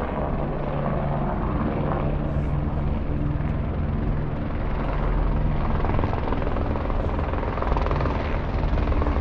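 Helicopter flying nearby: a steady engine-and-rotor drone that grows slightly louder about five seconds in.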